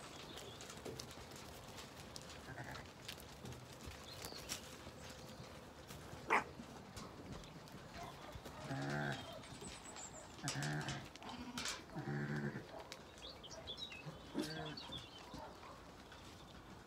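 Zwartbles sheep bleating, several low bleats mostly in the second half, over the scattered clicks of the flock's hooves on the track. A single sharp knock about six seconds in is the loudest sound.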